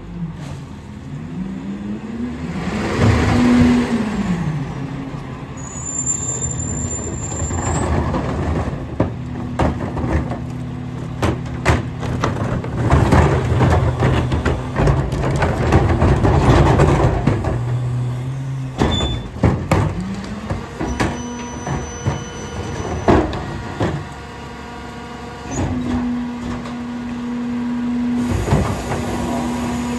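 Battle Motors McNeilus rear loader garbage truck at work: its engine revs up and settles back to drive the hydraulic cart tippers and packer, with repeated bangs and knocks as carts are dumped and trash is thrown into the hopper, and hisses of air.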